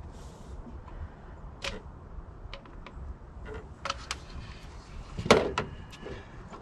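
Scattered light clicks and knocks of a funnel and tools being handled over a stopped engine, with a louder short clatter about five seconds in.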